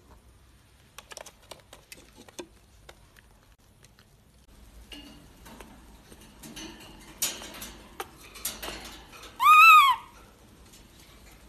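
Baby monkey climbing on a wire cage, with light clicks and rattles of the wire and scuffling, then one short, loud coo call near the end that rises and falls in pitch.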